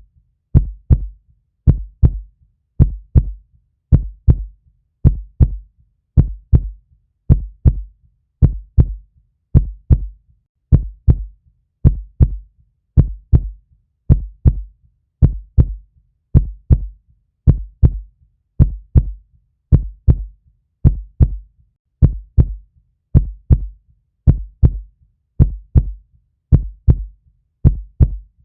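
Heartbeat: a steady lub-dub of low double thumps, about one beat a second, the first thump of each pair the stronger.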